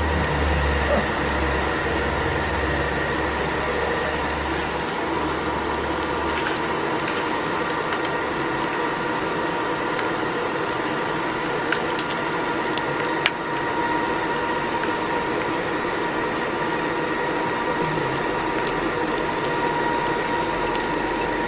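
Small melting furnace running steadily with a whirring, whining mechanical drone, as of its air blower. A low hum sits under it for the first few seconds, and there are a few faint clicks just past halfway.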